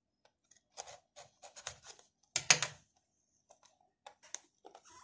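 A knife blade cutting through the seal stickers on a cardboard smartphone box: a run of short scratchy clicks and scrapes, the loudest about two and a half seconds in.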